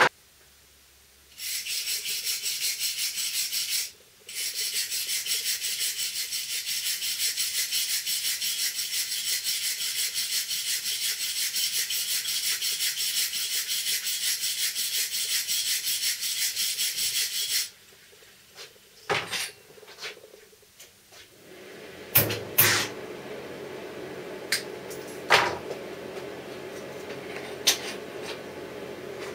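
MIG welding arc on aluminium, the wire fed through the standard torch rather than a spool gun: a steady hiss with a fast, even crackle. It starts about a second and a half in, breaks off briefly at about four seconds and stops at about seventeen and a half seconds. After it come a few sharp clicks and knocks over a low hum.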